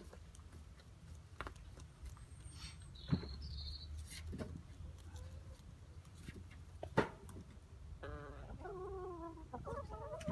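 Hens calling: a drawn-out, wavering call starting about eight seconds in. Two sharp taps come earlier.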